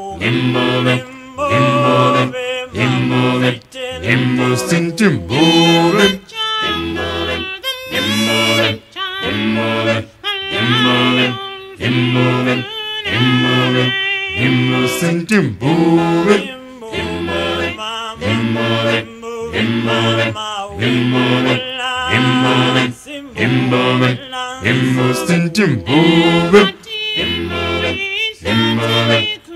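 Background music: an a cappella choir singing, with low voices repeating a short chanted figure about once a second beneath a higher lead voice.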